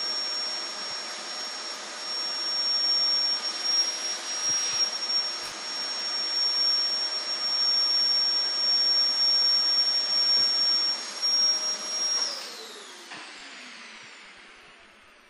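A high-speed electric motor running with a steady hissing whine and a strong high-pitched tone. About twelve seconds in it is switched off, and its pitch falls as it spins down and fades.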